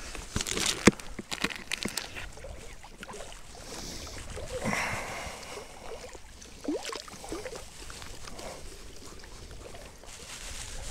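A plastic groundbait bag crackling as dry feed is shaken out into a bucket, then the bucket dipped into the lake, with water sloshing and gurgling into it from about four seconds in.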